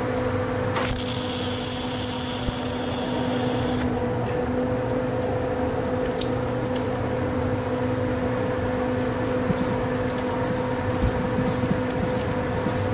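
MIG welder arc hissing and crackling for about three seconds, starting about a second in, over a steady hum. Short metallic tool clicks follow, repeating about every half second near the end.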